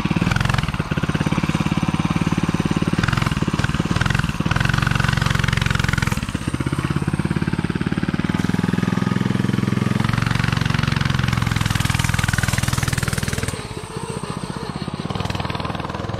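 Coleman CC100X mini bike's 99cc single-cylinder four-stroke engine running under way, its speed rising and falling as it is ridden, then easing off shortly before the end.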